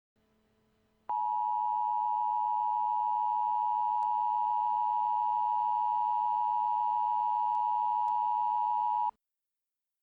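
Emergency Alert System attention signal: a loud, steady two-tone alert tone that starts about a second in, holds for about eight seconds and cuts off abruptly, announcing an emergency alert broadcast.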